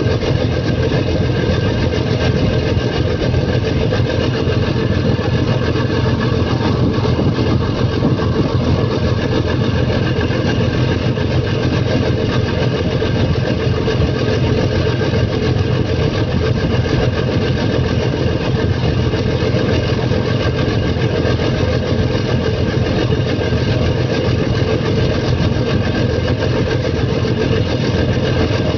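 A boat's engine running steadily, heard from on board: a constant loud drone that does not change.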